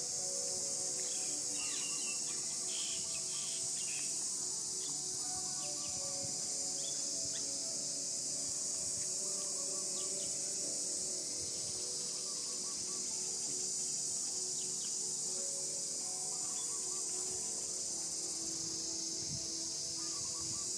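A steady, high-pitched drone of an insect chorus, with scattered short bird chirps.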